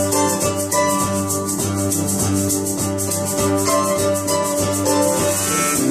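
A small band playing an instrumental passage: a strummed acoustic guitar with a fast, steady rattling percussion rhythm keeping time.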